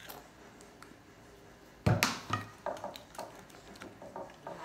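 A loud knock about two seconds in, then irregular clicks and sticky squelches as a silicone spatula stirs thick fluffy slime in a plastic bowl while contact lens solution activates it.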